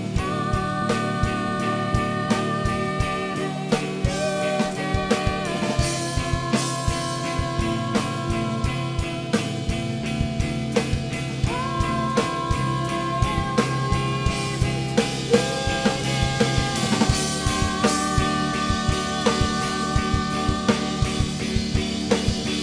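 Live rock band playing: a drum kit keeps a steady beat under long held notes that slide from one pitch to the next.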